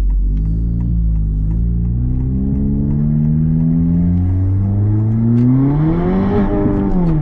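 The 2022 Honda Civic's 1.5-litre turbocharged four-cylinder engine pulling hard under load, its pitch climbing steadily for about six seconds as the revs rise, then falling sharply near the end.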